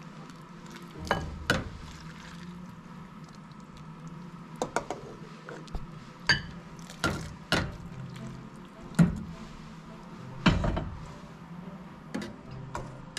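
Metal ladle scooping broth and dumplings out of a stainless steel saucepan, knocking against the pot about ten times at uneven intervals, with soup pouring and splashing between the knocks.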